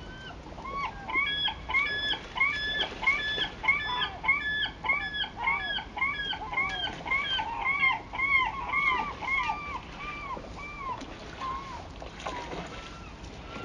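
Gull calling in a long, rapid series of loud repeated notes, about two or three a second, which slow down and fade over the last few seconds.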